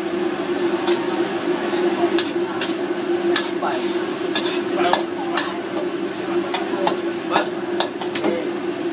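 Long metal spatula scraping and clanking against a steel wok as a stir-fry in sauce is stirred, in irregular knocks several times a second, over the sizzle of the sauce. A steady low hum runs underneath.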